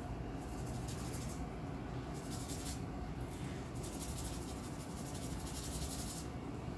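A paintbrush scrubbing and dabbing on paper, a dry hiss in three spells, the last and longest near the end, over a steady low room hum.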